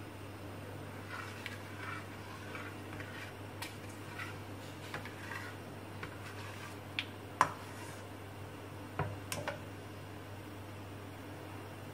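Whole spices (a bay leaf, cinnamon stick and cardamom) gently sizzling and crackling in hot oil in a karahi, over a steady low hum. In the second half a ladle clinks against the pan a few times, the loudest about seven seconds in.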